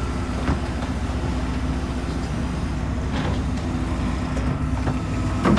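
Steady low drone of a fishing boat's engine running, with a few faint knocks and a louder thump near the end.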